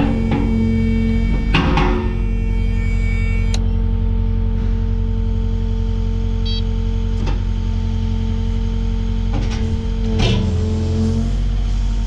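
Kubota excavator running steadily at a constant pitch, with a few short knocks and clunks as the bucket is worked into the hydraulic quick coupler.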